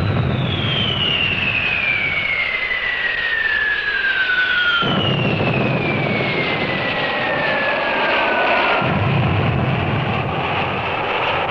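Military aircraft flying over in formation, a dense engine roar with a high whine that falls slowly in pitch as they pass, twice.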